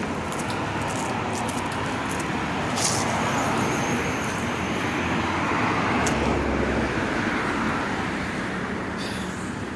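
Road traffic going by: a steady wash of tyre and engine noise that swells a little in the middle.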